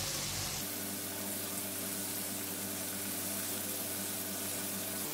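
Batter-coated chicken strips deep-frying in hot oil in a wok, a steady sizzle and bubbling, as the strips are turned with plastic tongs.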